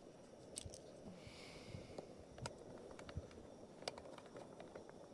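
Faint, scattered clicks and light knocks of camping cookware being handled and set down.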